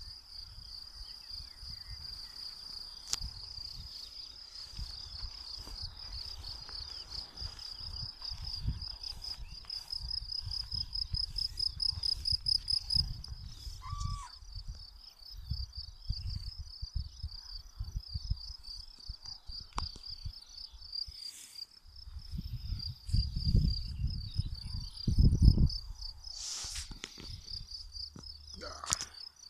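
Crickets chirping steadily in a meadow, a continuous high pulsing trill. Gusts of wind rumble on the microphone, heaviest a little past two-thirds of the way through.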